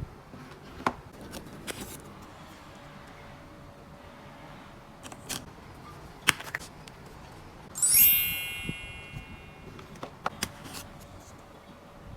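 Scattered light clicks and taps from handling small items and packaging, with one short bright metallic ring about eight seconds in that fades within a second.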